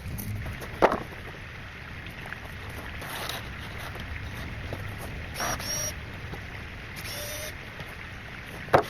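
Two sharp knocks, one about a second in and one near the end, with short squeaks in between, over a steady low rumble.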